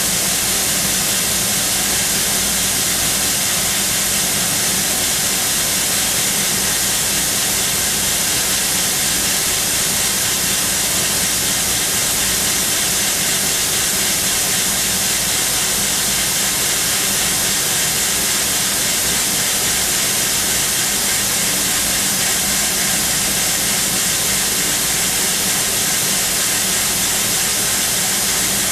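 Sodick ND80L machining centre with its spindle at 13,000 rpm, peck-drilling hardened SKD61 tool steel with a 1 mm OSG carbide drill, under a loud, steady hiss of spray.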